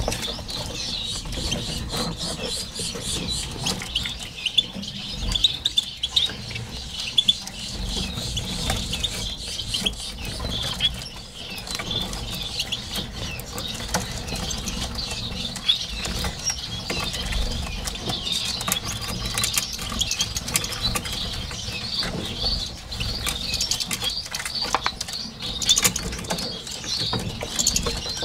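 Many small finches chirping continuously in quick, overlapping high notes, with scattered sharp clicks and knocks from the plastic nest being handled.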